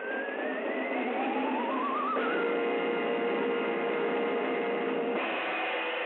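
Orchestral opening title music of an early-1930s sound cartoon. It begins with two rising slides in pitch, the lower one wavering, then from about two seconds in a held chord sounds, which shifts near the end.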